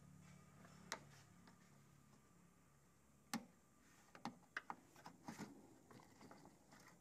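Faint clicks and ticks of a screwdriver prying the plastic press-pin clips out of a Maruti WagonR's wiper cowl cover: a sharp click about a second in, a louder one a little past three seconds, then a quick run of small clicks.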